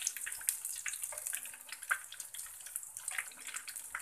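Breaded chicken fingers frying in hot oil in a pan: a steady sizzle dotted with many small crackles.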